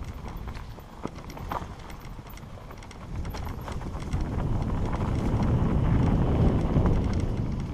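Mountain bike rolling fast down a rough, leaf-strewn dirt trail: tyres over leaves and roots, with the bike rattling and knocking irregularly. Wind rush on the microphone swells to its loudest in the second half.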